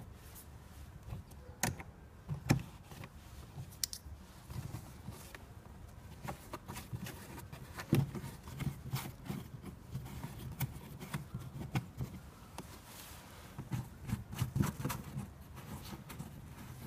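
Plastic engine-bay trim cover being handled and clipped into place: a scattered series of clicks, taps and knocks, the loudest about two and a half seconds in and again about eight seconds in.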